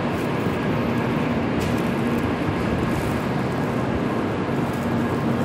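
Steady hum and hiss of a shinkansen train standing at the platform with its doors open, a faint low tone held under the noise and a few light ticks.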